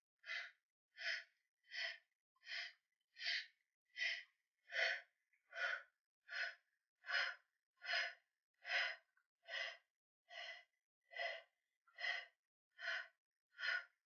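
A woman's short, rhythmic breaths, about one every three-quarters of a second and evenly paced, the working breathing of someone doing bouncing wide-squat pulses.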